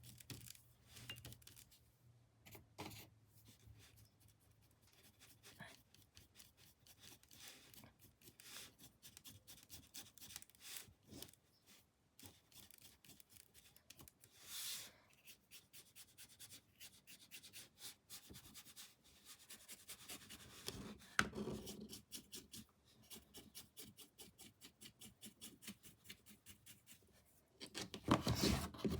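Paintbrush scrubbing and dabbing on canvas: faint, quick, repeated scratchy strokes. A louder knock comes about two-thirds of the way through, and there is louder handling near the end.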